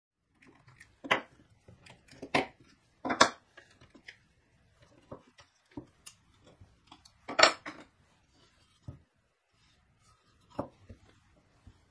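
Spring clamps being taken off a plywood corner jig and set down on a wooden workbench: irregular clacks and knocks of the clamps and plywood against wood, with quieter handling rustle between. The loudest knocks come about a second in, around three seconds in, and at about seven and a half seconds.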